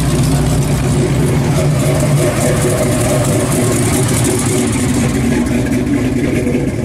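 Classic V8 cars driving slowly past one after another with loud exhaust: a 1955 Chevrolet pulling away, then a Chevrolet Nova rolling by close. The deep exhaust note of the first car fades about two seconds in as the next car's higher engine note comes up.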